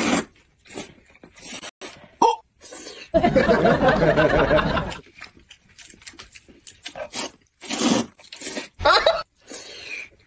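Two people slurping noodles from cups, a series of short wet slurps with a long loud slurp about three seconds in and another loud one near the end.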